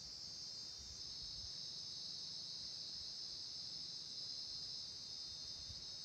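Insects chirring steadily in a continuous high-pitched drone.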